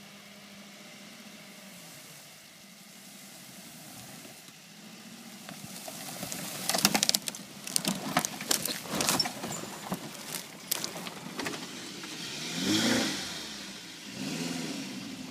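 Daihatsu Terios engine running at crawling speed off-road. From about six seconds in it comes with a run of sharp crackling and snapping as tall grass and twigs scrape against the bumper and underbody. Near the end the engine note swells and bends up and down twice as the SUV drives close past.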